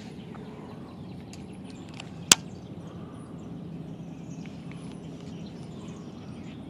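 Outdoor ambience of steady low background noise with faint bird chirps, broken by one sharp click a little over two seconds in.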